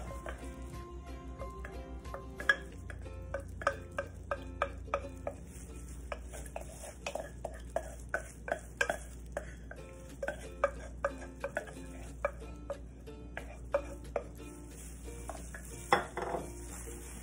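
A spoon scraping and knocking inside a saucepan as thick tomato sauce is spooned out, giving a string of sharp ringing clinks about one or two a second, loudest a couple of seconds in and near the end.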